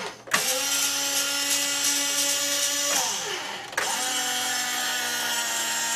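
Small DC gearmotors of a toy robotic arm whining as it is driven from its switch box: one motor run stops about three seconds in, and after a short gap another starts and runs on.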